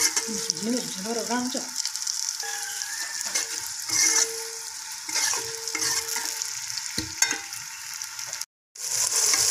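Sliced onions sizzling in hot ghee in an aluminium pot, a steel ladle stirring and scraping through them; the onions are beginning to brown. The sound cuts out for a moment near the end.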